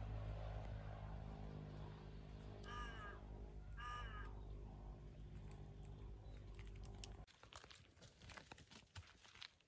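Two short bird calls about a second apart, over a steady low hum. About seven seconds in the hum cuts out, and light footsteps and ticks on dry ground follow.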